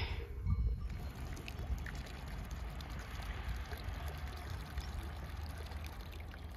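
Steady trickle of running water, like a small mountain stream.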